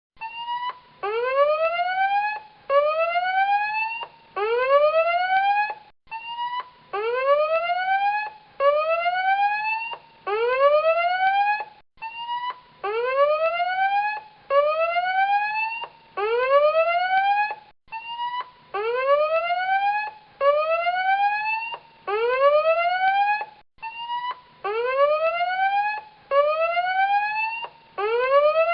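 Electronic tsunami warning alarm sounding a repeating whoop: a rising tone swept up over about a second, about four whoops in a row, then a short break before the cycle starts again.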